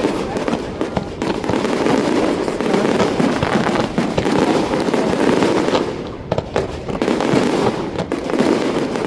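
Dense, continuous barrage of fireworks: many overlapping bangs and crackles with no real gap, easing off briefly about six seconds in before building again.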